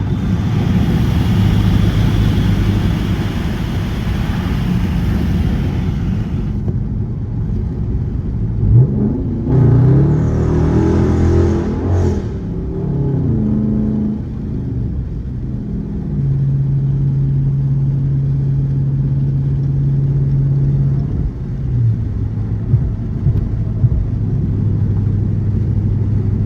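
Dodge Charger R/T's 5.7-litre HEMI V8 with a catless exhaust, heard from inside the car. For the first six seconds a loud rush of noise sits over the engine drone. About nine seconds in, the engine revs up and falls back under acceleration, then drones at a steady pitch while cruising.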